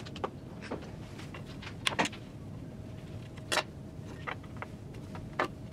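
Small metal hand tools and loose hardware being handled on a steel plate: a handful of sharp clicks and taps, spaced irregularly, over a low steady background.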